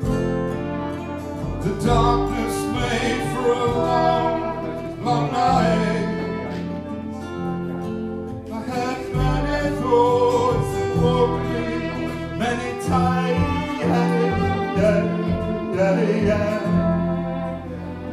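A live acoustic band playing a song: strummed acoustic guitar, double bass, violin and flugelhorn.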